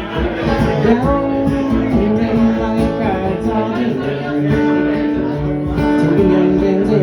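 Music: an instrumental break of a guitar-accompanied folk ballad, with a melody line that slides between notes and holds a long note from about four seconds in, over strummed guitar.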